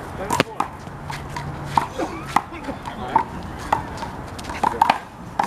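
A one-wall handball rally: the rubber handball is slapped by hands and smacks off the wall and ground in a string of sharp, irregular hits about every half second to second, with short squeaks between them.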